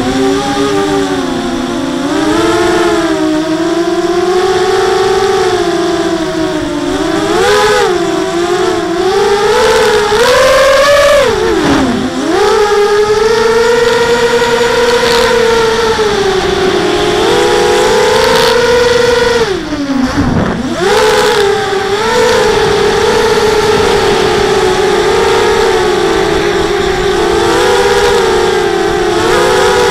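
Whine of a Blackout Mini H quadcopter's four T-motor 1806 2300 kV brushless motors and 5x4 propellers in flight, recorded up close by the onboard camera. The pitch rises and falls steadily with throttle, and drops sharply twice, about twelve and twenty seconds in, as the throttle is chopped before it climbs back.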